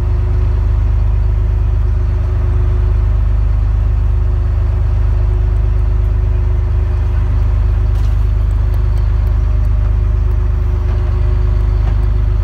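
Fishing boat's engine idling, a loud, steady low drone with a constant hum on top.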